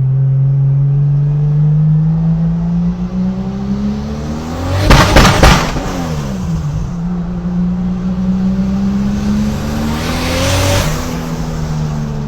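Car engine running steadily. Its note swells loudest about five seconds in, and the pitch rises and falls once more near the end.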